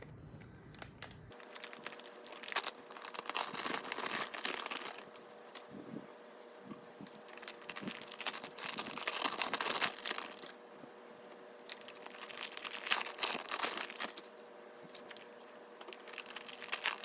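Packaging for server SSDs being opened by hand: crinkling, rustling and tearing in four bouts with short pauses between.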